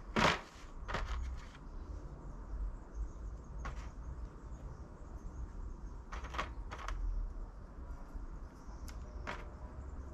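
Hands handling a clear plastic box of butternut squash seeds and pressing the seeds into a plastic seed tray: a sharp rustle at the start, then a few brief scattered rustles and clicks over a low rumble.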